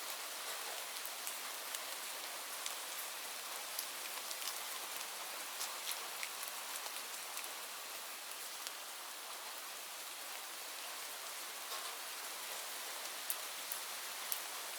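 Steady rain falling, a constant hiss with many close individual drops ticking on a hard surface.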